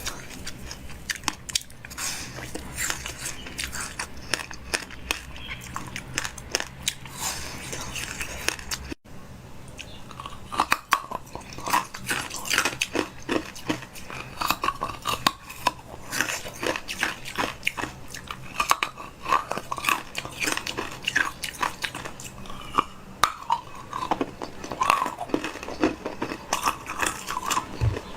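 A person biting and chewing crunchy food, with many sharp crunches and mouth clicks.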